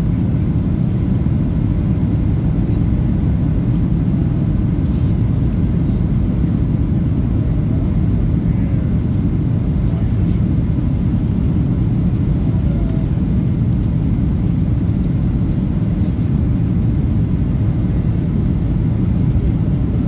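Steady low roar of jet engines and rushing air inside the cabin of a Boeing 737 airliner on its approach for landing.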